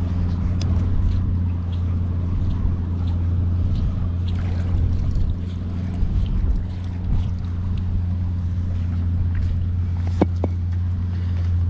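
Steady low engine hum with an even pitch, and a single sharp knock about ten seconds in as the magnet and its rusty catch come down on the paving stones.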